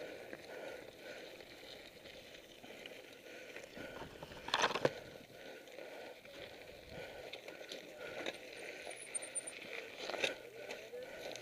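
Downhill mountain bike rolling over loose gravel and rock: tyres crunching and the bike rattling, with a louder clatter about four and a half seconds in and another near the end.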